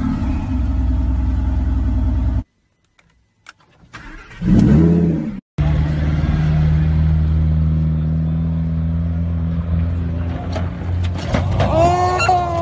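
A car's engine idling just after a push-button start, cutting off abruptly about two and a half seconds in. After a short silence and a brief loud sound, another car's engine runs at a steady low idle, with people shouting near the end.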